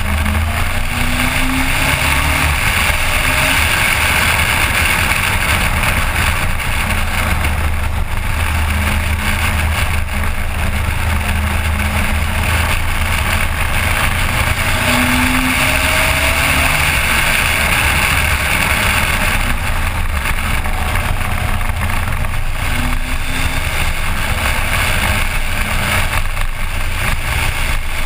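Suzuki GSX1400 inline-four motorcycle engine running while riding, under a steady rushing noise; the engine pitch rises and falls a little at a few points.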